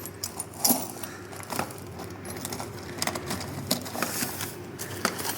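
Loose metal bolts clinking and rattling against one another as a hand rummages through a bag of them, in scattered, irregular short clicks.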